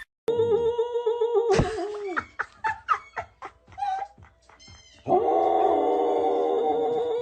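A dog vocalizing in long, steady-pitched howl-like tones: one held call just after the start and another from about five seconds in, with short yips and clicks between.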